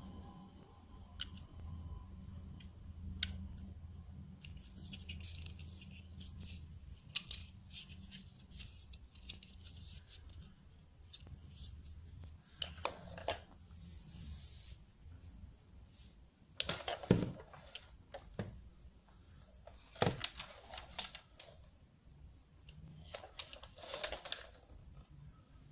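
Objects being handled in a small room: scattered sharp clicks and taps, with stretches of rustling and one brief hiss of tearing or rustling packaging about halfway through. A faint low hum fades out about ten seconds in.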